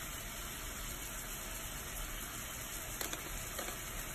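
Ground beef frying in a skillet: a steady sizzle, with one short click about three seconds in.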